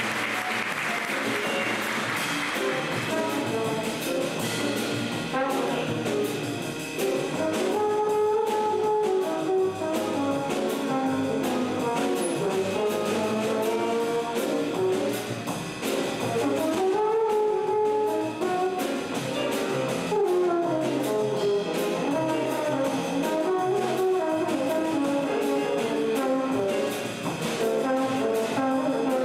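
Jazz trombone solo over a big band's rhythm section of piano, bass and drums, playing in phrases. Applause fades out over the first few seconds.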